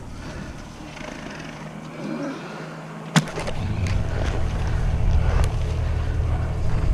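Low, steady rumble of handling and movement noise on a camera carried on horseback as the horse moves. It begins right after a single sharp knock about three seconds in.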